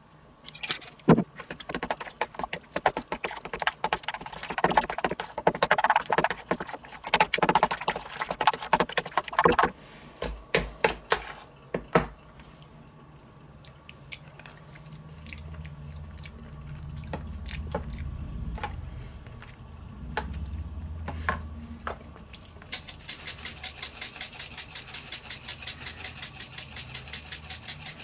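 A spoon stirring and scraping in a bowl of thick yogurt dip, with clicks and clinks against the bowl. Near the end a pepper mill grinds in quick, even twisting strokes, about three a second.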